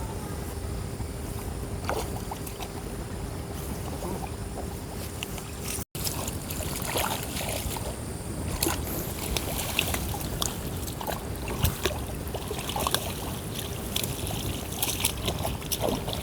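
Water outdoors: a steady hiss with many small splashes and patters, busier after a brief break about six seconds in.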